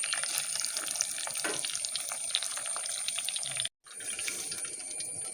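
Mustard seeds, curry leaves and dried red chilli sizzling and crackling in hot oil in a tempering ladle. The sound cuts off briefly about three and a half seconds in, then the sizzle carries on a little quieter.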